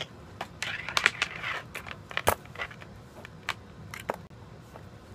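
Scattered clicks, taps and rustles of a wire, a solder spool and a soldering iron being handled on a desk, over a low steady hum.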